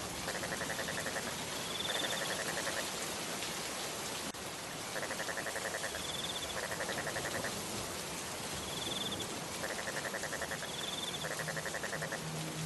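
Steady rain hiss, with pulsed animal trills coming in pairs about every four to five seconds and short higher trills between them. A low buzzing call starts near the end.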